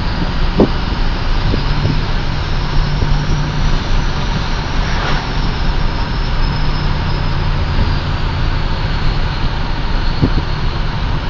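A 2007 Ford F-250's 6.0 Powerstroke turbodiesel V8 runs steadily as the truck idles along. A thin, high turbo whistle carries over the engine noise; it comes from a 10-vane 2003 Ford turbocharger fitted in place of the stock 13-vane unit.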